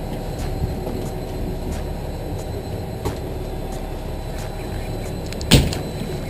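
Fishing boat's engine running steadily, with one sharp knock near the end.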